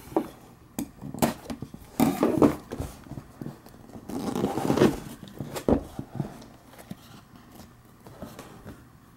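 Cardboard box being handled and opened by hand: irregular scraping and rubbing of the cardboard with a few sharp clicks and taps. The loudest stretches come about two seconds in and again around four to five seconds, and it dies down to light handling near the end.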